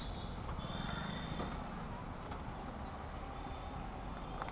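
Motorcycle riding in traffic: steady engine and road rumble with light wind noise, heard through a microphone inside the rider's helmet.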